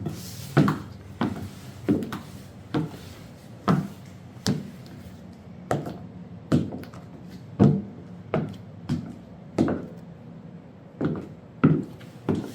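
Footsteps in 7-inch platform high heels on a hard floor: a sharp knock with each step, a little over one a second.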